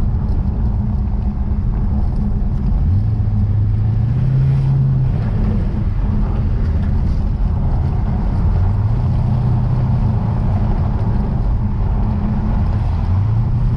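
Lexus RC F's 5.0-litre V8 pulling at low revs, its note rising three times as the car gently accelerates. Under it is a steady heavy rumble of tyres over a rough, broken road surface.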